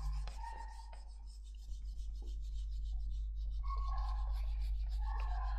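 Whiteboard eraser rubbing marker writing off a whiteboard in repeated wiping strokes. It is a dry rasping rub that gets louder in the second half.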